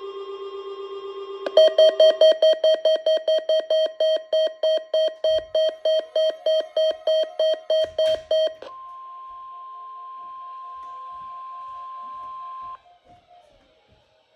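Midland WR300 weather radio sounding for the weekly alert-system test. A quieter pulsing tone gives way to a loud, shrill alarm beeping about four times a second for some seven seconds. Then comes a steady weather-radio warning alarm tone for about four seconds, which cuts off.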